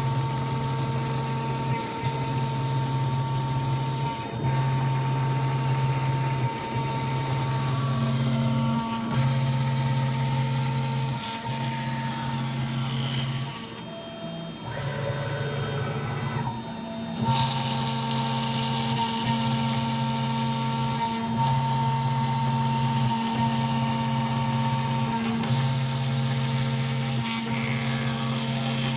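High-speed milling spindle running as it cuts tachometer face plates, a steady mechanical whine with a sharper high whine for a few seconds twice. It eases off briefly a little before halfway.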